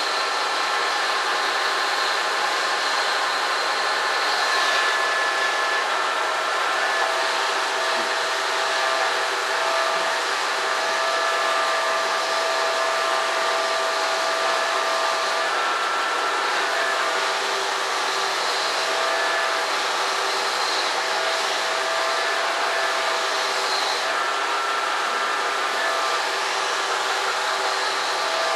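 A small electric motor-driven machine running steadily, an even whir with a rush of air; its tones shift a little every few seconds.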